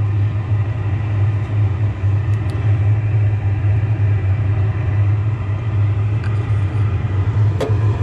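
LP gas furnace running on a call for heat, burners lit: a steady low rumble of flame and fans. A brief click near the end.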